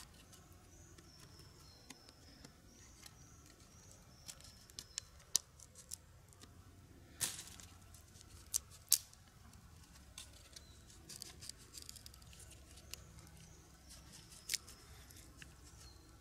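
Faint, scattered clicks and small cracks of green wood as small sticks are pressed and wedged into the cross-split top of a freshly cut stick, with a knife blade knocking against the wood. One somewhat louder crack comes about seven seconds in.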